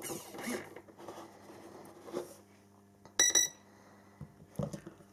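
A battery connector pushed home with a few handling clicks, then about three seconds in a short electronic beep from the boat's 40A brushless ESC, its power-up tone once the battery is connected.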